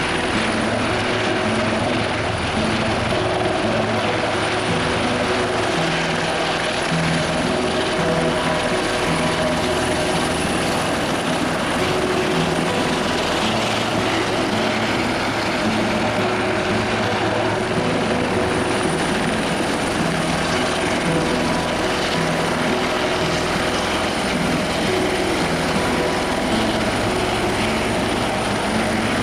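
Helicopter running steadily, its engine and rotor making a dense, even noise with a steady high-pitched whine over it.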